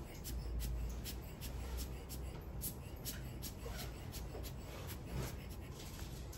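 Short puffs of air from a rubber bulb blower squeezed over and over, about two or three a second, blowing wet alcohol ink across the paper.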